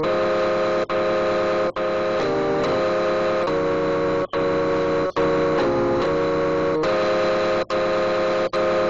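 Sustained electronic tones in chords, playing a short sequence that repeats about every three and a half seconds, with brief cut-outs in the sound almost every second.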